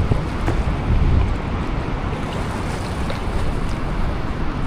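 Wind buffeting the microphone in gusts over a steady rush of water pouring through a river spillway.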